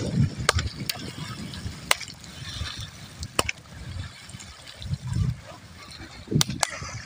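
A bamboo pole beaten against shallow floodwater to drive fish toward a trap: a series of sharp slaps and splashes, two in quick succession near the end, over the slosh of wading through water.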